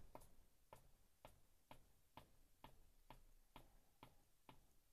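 Near silence, with faint, evenly spaced ticks about twice a second.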